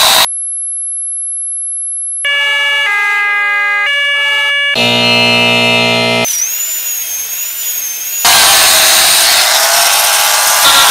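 A run of electronic sound effects played back to back: a very high-pitched steady tone for about two seconds, then a short sequence of stacked electronic tones stepping in pitch, a harsh buzzer, and a wavering high whistle. Over the last few seconds a loud rushing noise with sliding pitch takes over.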